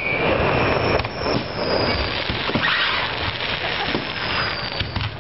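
Large aerial fireworks display: a continuous dense crackling and popping of shells bursting, with booms that echo between city buildings. A faint high whistle falls slowly in pitch about a second in and again near the end.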